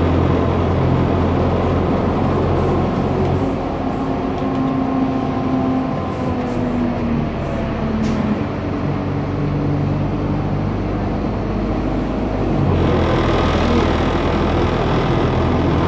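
Cabin sound of a Güleryüz Cobra GM 220-LE city bus under way, its Cummins diesel engine and Allison automatic gearbox running with a steady low hum. Through the middle a gearbox whine shifts in pitch, and about three seconds before the end the engine and road noise grow louder as the bus pulls harder.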